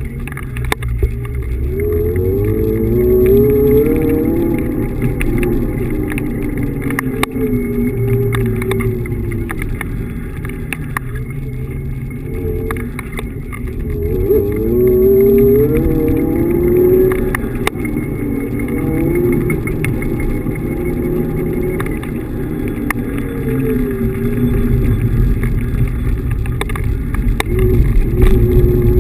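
Electric kick scooter's brushless hub motor whining over the rumble of its wheels on pavement. Twice the whine rises in pitch as the scooter speeds up, then slowly falls as it slows, with small clicks and knocks from bumps in the surface.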